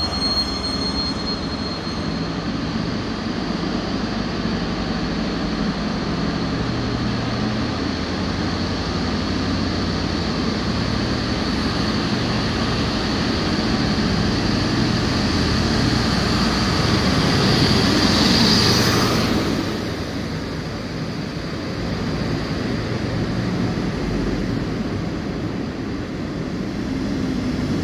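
A DB Class 218 diesel locomotive runs as it hauls a double-deck regional train slowly into the platform, with a thin high squeal in the first two seconds. The engine grows louder as the locomotive approaches and is loudest, with a rush of hiss, as it passes close about two-thirds of the way through. After that the double-deck coaches roll by with a quieter, steady rumble.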